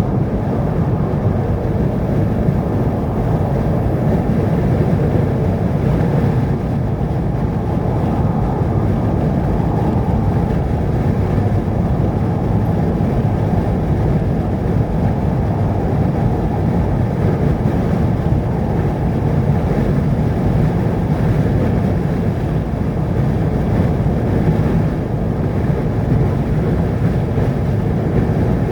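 Steady low rumble of a vehicle on the move: road and engine noise, unchanging throughout.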